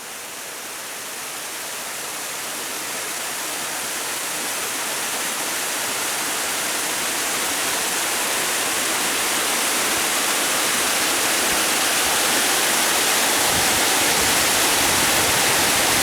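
Jōsei Falls waterfall: a steady rush of falling water that grows gradually louder throughout.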